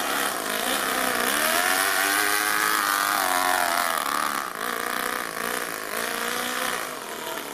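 Toyan FS-L200 two-cylinder four-stroke nitro model engine running as the RC car drives, its pitch rising and falling with the throttle. The owner says it is still running a little rich. It gets quieter after about four seconds.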